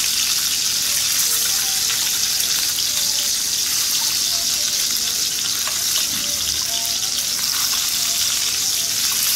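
Pork belly cubes sizzling steadily in their own rendered fat in a stainless steel electric skillet at high heat, with no oil added, as tongs turn the pieces.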